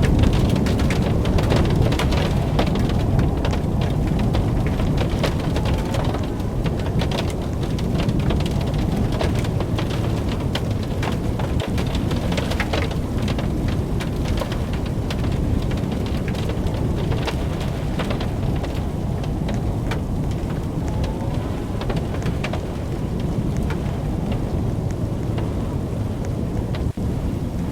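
Heavy storm: a continuous deep rumble with rain and many small crackling hits throughout.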